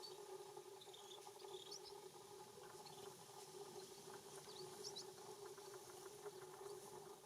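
Faint, short high-pitched bird chirps, a few about a second in and a couple more near five seconds, over a steady low hum.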